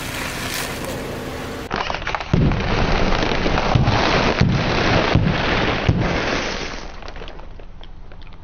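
Crunching and crackling of things being crushed under a car tyre. It sets in about two seconds in with a run of sharp cracks, then fades away near the end.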